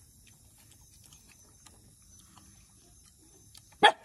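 Dog giving a single short, loud bark near the end, over faint scattered ticks.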